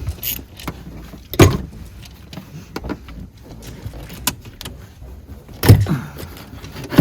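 The 335i's starter motor cranks briefly twice, once about a second and a half in and once near the end. Each time it falls in pitch and dies away because the battery is too flat to start the engine.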